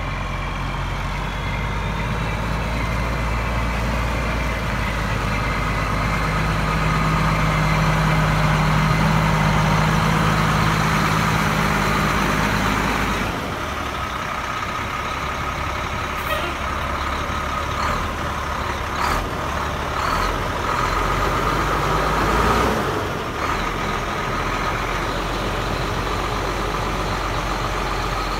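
1995 Ford AeroMax L-9000 truck tractor's diesel engine running as the truck drives on gravel. The engine note rises over the first dozen seconds, then eases off suddenly about halfway, with a few short sharp sounds in the second half.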